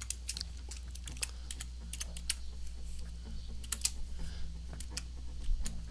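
Typing on a computer keyboard: irregular keystrokes clicking one after another, over a steady low hum.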